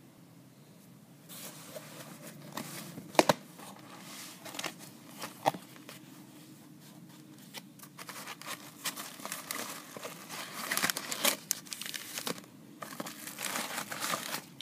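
A cardboard shipping box being torn open by hand, then bubble wrap being handled, with crinkling and tearing and a few sharp cracks about three and five and a half seconds in. The crinkling grows denser near the end.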